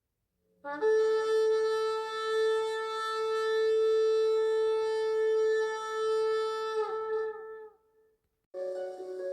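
A shofar sounding one long, steady blast of about six seconds, then tailing off. Soft music starts just before the end.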